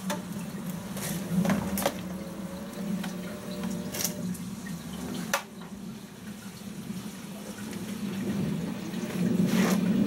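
LG F1222 Direct Drive front-loading washing machine starting its wash: water running in through the inlet valve over a steady hum, with a few sharp clicks, and the drum turning the clothes, louder near the end.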